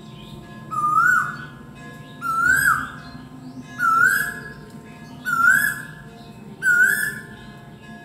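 Male Asian koel calling: five loud rising whistled calls, about one every second and a half, each climbing in pitch and then holding briefly.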